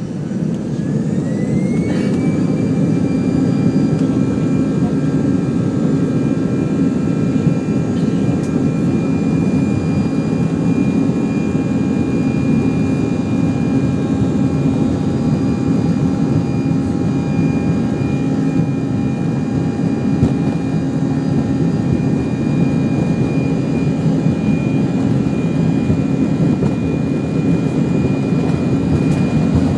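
Airbus A319's jet engines heard from inside the cabin, spooling up to takeoff thrust: a whine rises in pitch over the first two seconds, then holds steady above a loud, even rumble as the airliner rolls down the runway.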